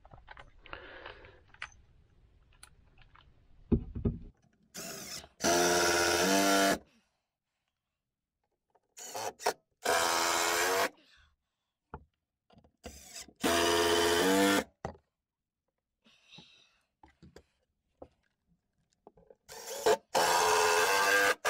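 Milwaukee cordless drill driver driving four small screws into a plywood board, one after another: each a short blip of the trigger, then a steady whine of about a second and a half as the screw goes in.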